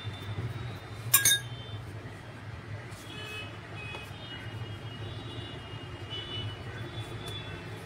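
A single sharp kitchen-utensil clink with a short ring about a second in, over a steady low hum.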